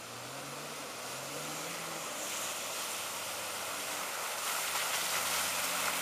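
Nissan Patrol 4x4 driving through shallow muddy water: its engine running, the note rising a little in the first two seconds, with water splashing and spraying off the tyres. It grows louder as the vehicle comes close and passes.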